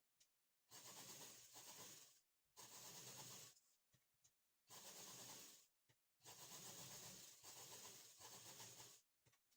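A sewing machine stitching a seam in four short, faint runs, each one to three seconds long, stopping briefly between runs. The seam joins a blouse piece to its lining.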